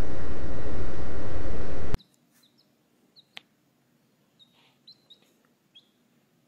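Loud, dense noise cuts off suddenly about two seconds in. After it comes near quiet with a few short, faint, high peeps from a baby chick.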